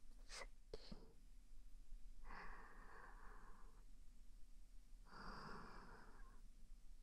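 Soft, slow breathing close to the microphone, two long breaths about three seconds apart, with two faint clicks in the first second.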